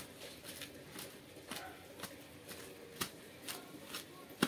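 Metal spoon clicking and knocking against a steel plate at irregular intervals as chutney is mashed in it, with the loudest knock near the end.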